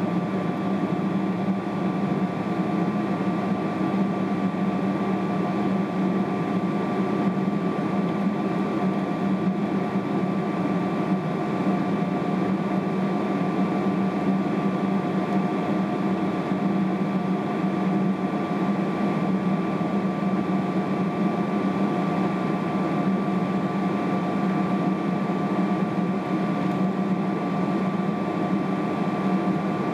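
Steady cabin drone inside a Boeing 777-300ER on the ground before takeoff: its engines at low power and the air conditioning make an even hum with a couple of faint steady whining tones.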